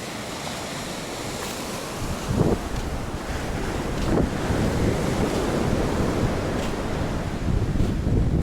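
Steady rush of surf, with wind buffeting the microphone more heavily from about two seconds in, in short gusts.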